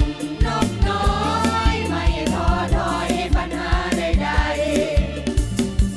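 Several voices singing together through microphones over an amplified band, with a steady kick-drum beat and bass.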